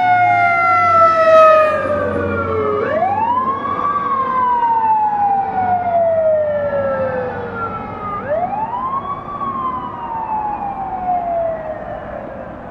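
Fire engine siren wailing: the pitch sweeps up quickly and then falls slowly over about five seconds, twice, and fades toward the end.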